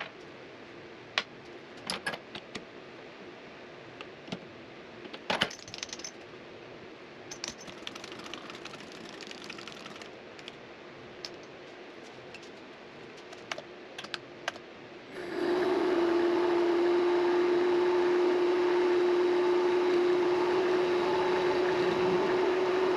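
Scattered metallic clicks and clinks of tools and metal parts being handled, then about fifteen seconds in a Vevor MX400 mini lathe starts up and runs with a steady whine.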